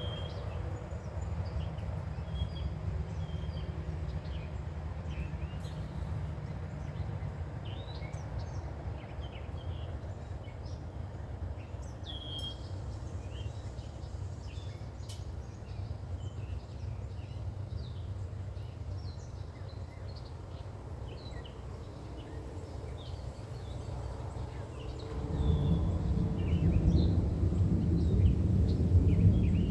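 Songbirds chirping in short, scattered calls over a steady low rumble from the approaching thunderstorm. Near the end the low rumble swells louder as thunder rolls in.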